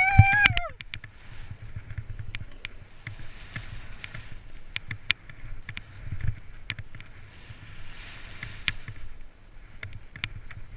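A rider descending a steep snow slope: a brief shout right at the start, then the continuous hiss and scrape of edges sliding over chopped, tracked-up snow, with frequent sharp clatters from bumps and a low wind rumble on the camera.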